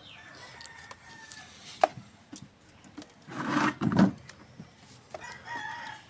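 A chicken calling in the background, in short pitched calls near the start and again near the end. Sharp clicks and a loud rustling scrape about three and a half seconds in come from handling close to the microphone.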